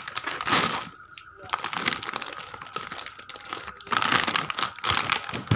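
Plastic packaging crinkling and rustling against a woven plastic sack as a large packet of detergent powder is pulled out and handled. There are two louder bouts of crackling, one right at the start and one from about four seconds in.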